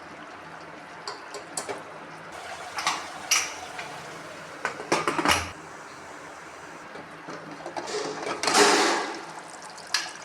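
Cooking in a pot: a few utensil clicks and scrapes against the pan over a steady hiss, then a loud rush of liquid about eight seconds in, as of water being poured in.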